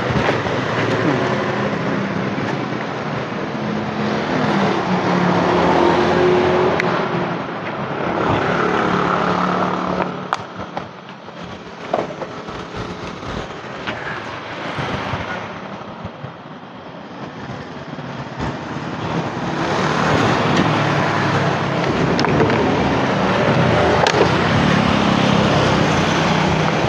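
Road traffic going past, with vehicle engines swelling and fading: loud at first, dropping away in the middle, and loud again in the last third. A few sharp clicks come in the quieter middle stretch.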